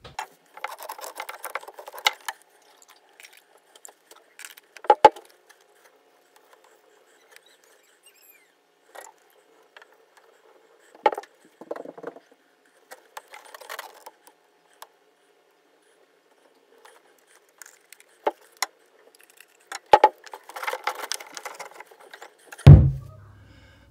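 Handling of PVC drain pipe, fittings and a can of pipe cement: scattered light clicks, scrapes and rustles with quiet gaps, and a heavier thump near the end as the last pipe piece is pushed into place.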